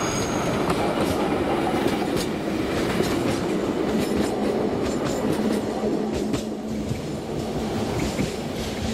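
Narrow-gauge train running past on the rails, with a steady rumble and repeated wheel clicks over the rail joints. A steady low hum sets in about halfway through.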